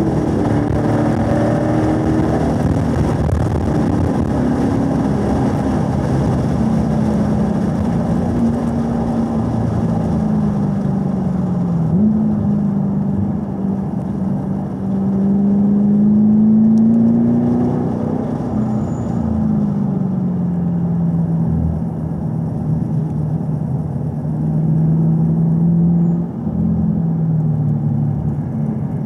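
2018 Camaro SS 1LE's 6.2-litre V8 on track, its note falling as the car slows from high speed and then rising and falling through slow corners in third gear, with brief dips at the lifts and shifts. Wind and road noise are heavy at the start at speed and ease as the car slows.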